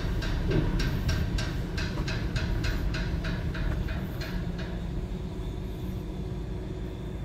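Kyokuto concrete pump truck running, with a steady low engine rumble and a rapid even ticking of about three clicks a second that fades out about two-thirds of the way through.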